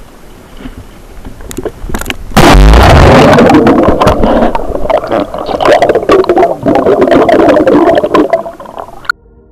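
A person plunging into a swimming pool: a sudden heavy splash about two and a half seconds in, then the muffled underwater rush and bubbling picked up by the submerged action camera, with many small clicks and pops. It fades and cuts off suddenly near the end.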